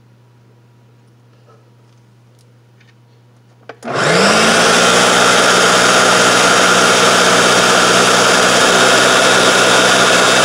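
Electric countertop blender switched on about four seconds in with a click. It spins up with a rising whine, then runs loudly and steadily, blending black bean brownie batter. Before it starts there is only a faint low hum and a few light ticks.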